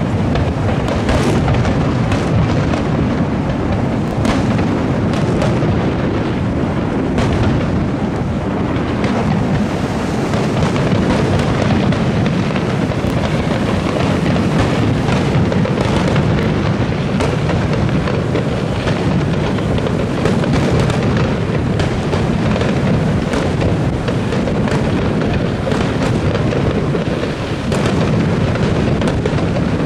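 Aerial firework shells bursting in quick succession, a dense, unbroken run of booms and bangs with crackle on top.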